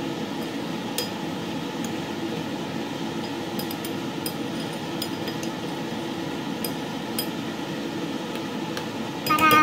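Metal spoon stirring in a ceramic bowl, giving occasional light clinks against the bowl, over a steady background hum.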